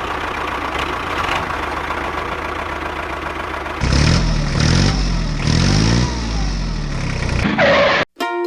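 Tractor engine sound idling steadily, then revving up and down several times from about four seconds in, cut off abruptly near the end.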